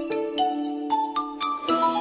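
Background music: a light tune of chiming, bell-like notes, with a short run of notes stepping upward in pitch about halfway through.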